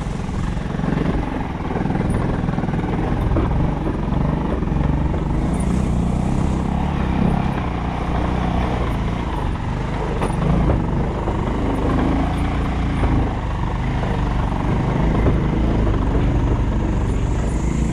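A road vehicle's engine running steadily while under way, a continuous low rumble mixed with road noise.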